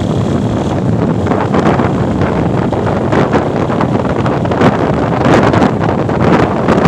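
Wind buffeting a microphone on a moving motorcycle, gusting louder in places, with vehicle noise underneath.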